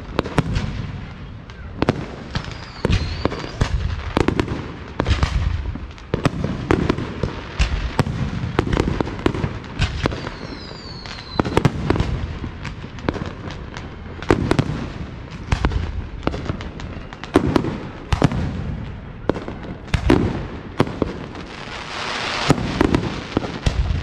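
Aerial fireworks display: a rapid series of booms from shells bursting, some close together, with a couple of falling whistles. Near the end comes a longer stretch of hissing crackle.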